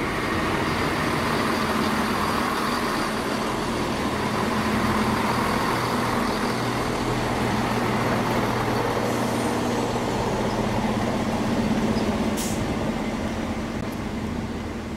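ScotRail Class 170 Turbostar diesel multiple unit running past at close range, its underfloor diesel engines giving a steady low drone. The sound fades near the end as the train moves away.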